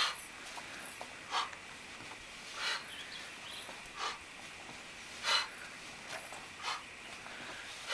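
Steel mace swung in repeated arcs around the body, making short whooshing rushes at an even pace, about one every second and a third.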